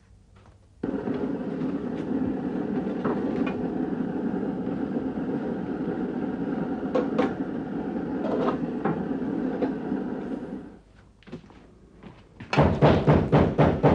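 Small kerosene pressure stove (Primus type) burning steadily under a metal pan, with a few scrapes of a utensil in the pan. It then stops, and near the end comes a loud clatter of aluminium pots and lids.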